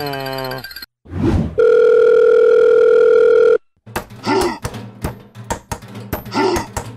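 Edited cartoon sound effects: a falling whistle-like glide ends, a short rising swoosh follows, then a loud steady beep like a dial tone lasts about two seconds and cuts off. After a brief gap, light background music with a regular beat starts.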